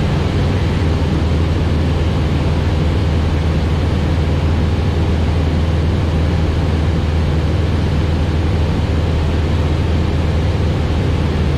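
Light aircraft's piston engine and propeller droning steadily in flight, heard inside the cockpit with the rush of airflow over the cabin. The engine note holds even throughout.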